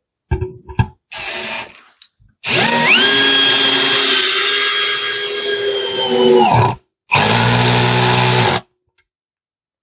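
Parkside Performance PABS 20-Li C2 cordless drill-driver on clutch setting 18, driving a screw into wood. After a few clicks and a short burst, the motor spins up with a rising whine, runs steadily for about four seconds and winds down, then runs again briefly.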